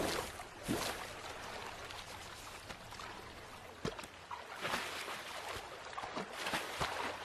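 River water running, with a few short splashes: one about a second in and several more in the second half.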